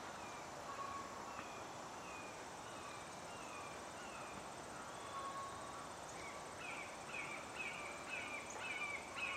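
Faint outdoor ambience: a steady high insect hum under a run of short, falling chirps about two a second, which grow louder in the last few seconds.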